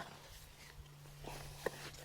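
Faint rustling and scraping of dry soil being worked through while lifting potatoes, with one sharp tap about one and a half seconds in.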